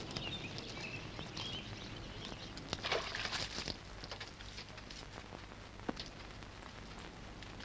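Birds chirping faintly over a steady low hum for the first second and a half. About three seconds in there is a short burst of hissing noise, and a few light clicks come later.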